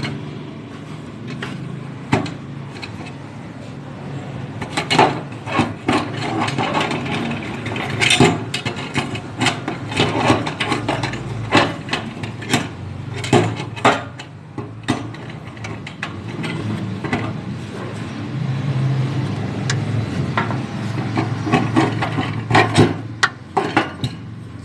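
Irregular runs of sharp knocks, clicks and clanks from hand tools and metal parts being handled during a vehicle repair, over a steady low hum.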